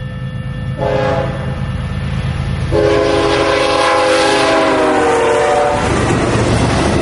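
BNSF freight train's GE diesel locomotives blowing their air horn: a short blast about a second in, then a long blast of about three seconds whose pitch sags slightly as the lead unit passes, the close of a grade-crossing horn signal. Under it the diesel engines rumble, and when the horn stops the locomotives and cars rumble and clatter past close by.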